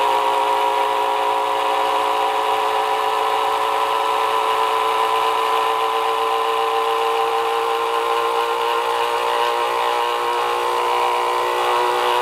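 Small electric knife motor running flat out, belt-driving a generator pulley: a steady high whine of several tones that creeps slightly up in pitch as the voltage is raised. It is being overdriven on up to 120 volts, close to the point where it starts to smoke.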